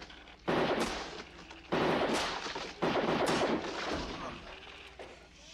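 Gunfire: three loud bursts of shots about a second apart, each trailing off in a long echo, then a quieter tail.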